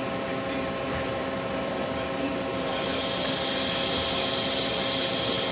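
Compressed air hissing at a machine's pneumatic tool chuck during an automatic tool change, as the changer arm seats a tool holder in the spindle chuck. The steady hiss starts about halfway through, over the machine's steady hum.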